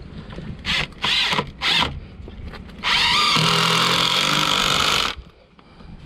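Power drill driving a concrete screw into a pre-drilled hole: three short trigger bursts, then one steady run of about two seconds that stops suddenly as the screw seats.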